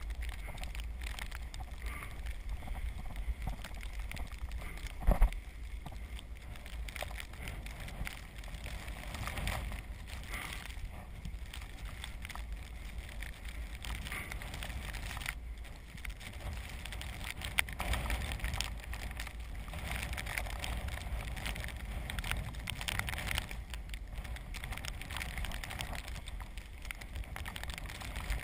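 Ride noise from a recumbent trike rolling over snow and slush: a steady hiss and low rumble of tyres and motion. A sharp knock comes about five seconds in, and a lighter click later on.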